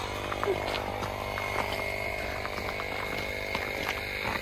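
A motor running steadily: a constant buzzing drone with a thin high whine over it, and a few light clicks and knocks.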